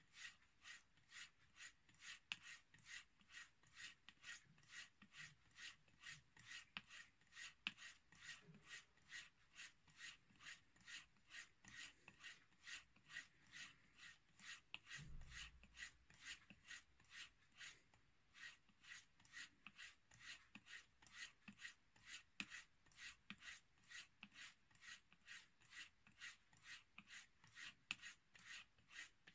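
A straight razor stropped on a strip of bare leather with no compound: a fast, even run of faint rubbing swipes, a few each second, as the blade is drawn back and forth over the leather. A single low thump comes about halfway through.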